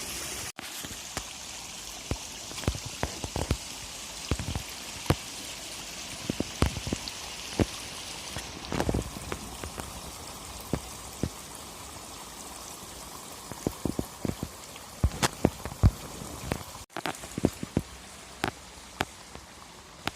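Rain-swollen mountain stream running steadily, with scattered sharp ticks and knocks over the water sound.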